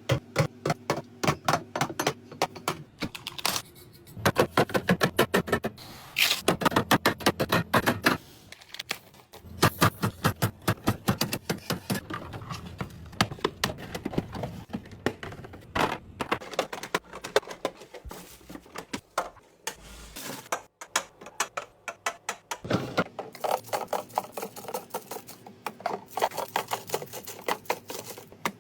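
Rapid, dense clicking and clacking of groceries and plastic containers being handled and set down while a fridge is filled, with a few short lulls.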